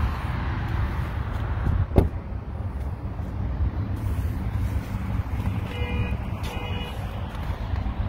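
Steady low vehicle rumble, with a single sharp knock about two seconds in and two short beeps about a second apart near six seconds.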